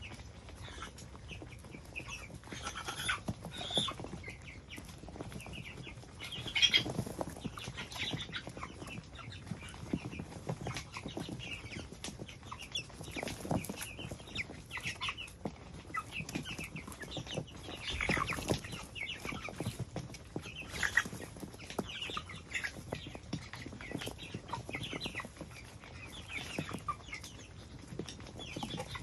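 A small flock of white broiler chickens calling, with many short, overlapping calls scattered throughout.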